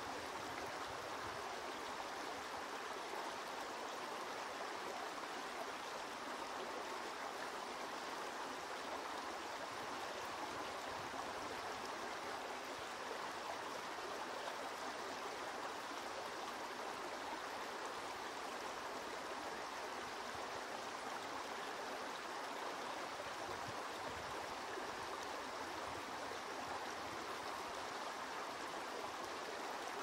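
Small forest brook running, a steady, even rush of water with no breaks.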